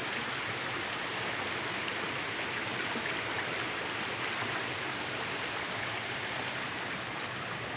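Waterfall rushing steadily over rocks, a continuous even wash of falling water.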